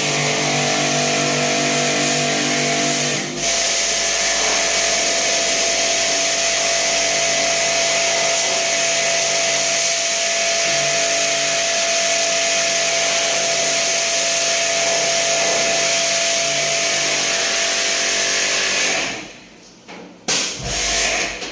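A motor-driven machine running steadily with a loud hiss and a steady hum. There is a brief dip in the sound about three seconds in, and the machine stops about 19 seconds in.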